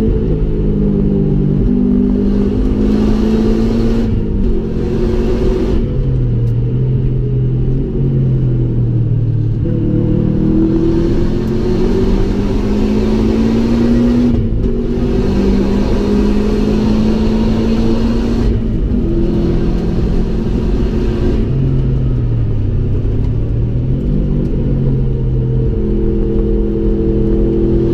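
2005 Subaru Impreza WRX STI's turbocharged flat-four engine under hard track driving, heard from inside the cabin. The engine note climbs in pitch through each gear and drops at each change, with one dip and recovery for braking and accelerating out of a corner. A hiss of wind and road noise comes and goes over it.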